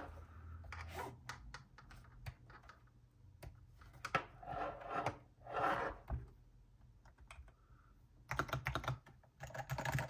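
Fast, random typing on a Melgeek Pixel mechanical keyboard fitted with Melgeek's Pixel T tactile, non-clicky switches: irregular flurries of keystrokes that thin out for a second or two past the middle.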